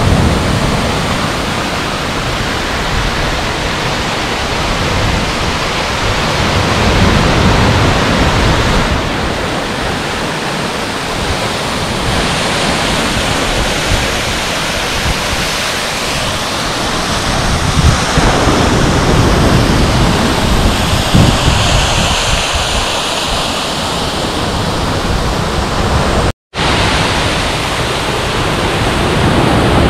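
Steady rushing of sea surf breaking on a sand beach, mixed with small waterfalls pouring off a rock cliff onto the sand, swelling and easing with the waves. The sound cuts out completely for a moment near the end.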